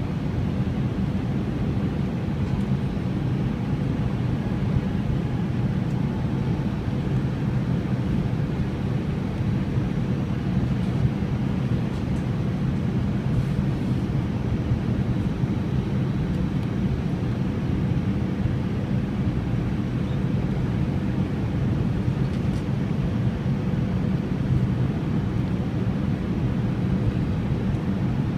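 Steady cabin noise inside an Airbus A321 airliner on descent, heard from a window seat over the wing: the jet engines and airflow make an even, low-pitched noise with a faint steady hum over it.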